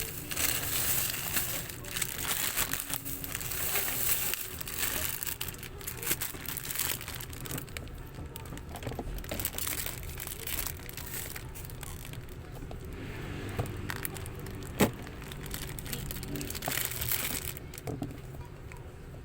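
Packaging being handled and crinkled, with irregular rustling throughout and one sharp click about three-quarters of the way through.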